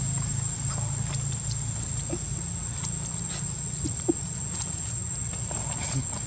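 Steady high-pitched insect drone over a low rumble, with scattered light ticks and a few short faint blips; one brief sharp sound about four seconds in.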